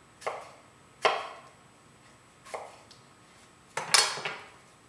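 Kitchen knife slicing apples thin on a wooden cutting board: a few separate knocks of the blade through the apple onto the board, the loudest pair near the end.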